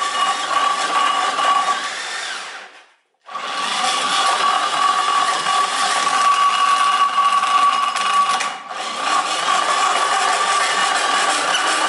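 Cordless drill whining steadily as it spins an old engine over through a socket on the crankshaft, standing in for a starter motor. The drill stops for a moment about three seconds in, then spins up again, with a short dip around eight and a half seconds in.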